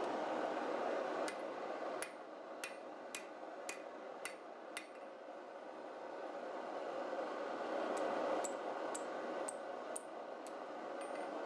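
Light hammer blows on a red-hot steel bar over the anvil horn, bending it into the J curve of a hook. Seven blows come about two a second, then after a pause six more at the same pace, over a steady rushing noise.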